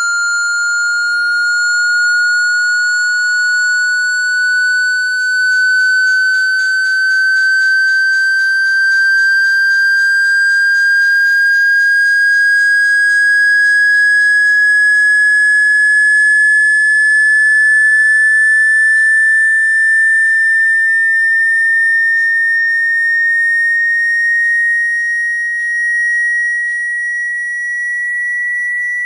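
Loud, pure electronic sine tone, rising slowly and steadily in pitch throughout. It is a speaker-cleaning tone, played to shake water out of a phone speaker.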